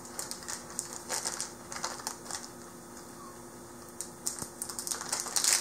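Crinkling and crackling of a T-port's sterile packet as it is handled and peeled open by hand: scattered small crackles, a lull in the middle, then a denser run of crinkling near the end.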